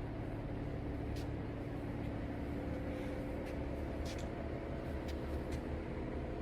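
CNC Swiss-type lathe running: a steady machine hum with a few light, sharp clicks scattered through it.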